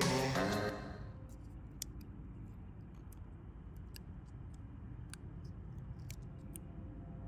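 Background music fading out within the first second, then a faint steady hum with a handful of light, scattered clicks from the broken steel wrench halves being handled and pressed together.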